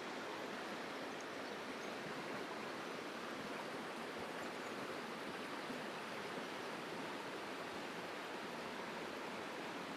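A small rocky river running over a riffle of stones: a steady, even rush of flowing water.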